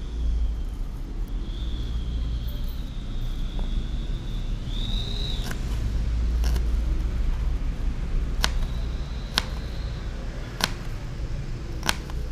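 Knife blade tapping a plastic cutting board while shallots are cut, about six sharp clicks roughly a second apart in the second half, over a steady low rumble. A faint high whine sounds in the first half.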